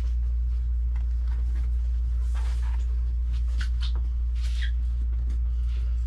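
A steady low hum throughout, with faint rustles and light knocks as a 27-inch iMac is lifted by its stand and laid face down on a towel.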